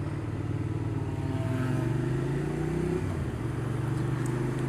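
Motorcycle engine accelerating, its note rising steadily, dropping briefly about three seconds in as a gear is changed, then rising again.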